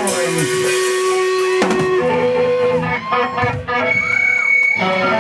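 Live band music: electric guitar notes, some of them bent, over a drum kit, with a brief drop in loudness a little past the middle.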